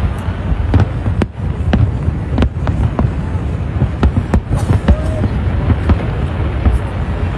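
Aerial firework shells bursting in quick, irregular succession: many sharp bangs over a continuous low rumble of booms.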